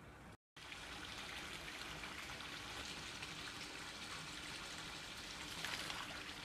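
Running water trickling and splashing steadily, starting about half a second in.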